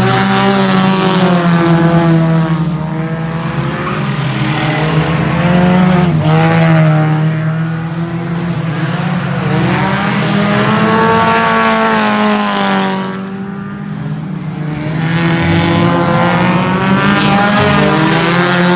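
Several dirt-track race cars running hard in a pack, their engines rising and falling in pitch as they power through the turns and pass. The sound dips briefly about two-thirds of the way through, then builds again as the cars come back around.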